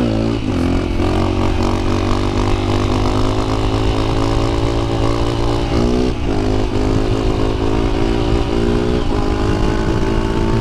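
Honda CRF250L's single-cylinder four-stroke engine running steadily under way. The engine note dips and climbs back up right at the start and again about six seconds in, as with a gear change.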